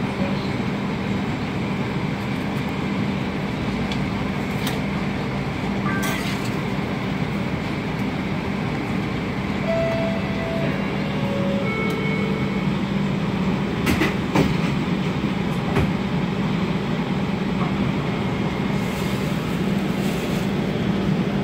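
TTC streetcar heard from inside the car: a steady hum and rumble, with a few sharp knocks, the loudest about fourteen seconds in.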